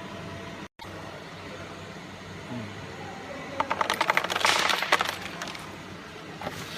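A quick run of sharp clicks and clinks, like small hard parts being handled or dropped, over the steady hum of the laser marking machine's cooling fan.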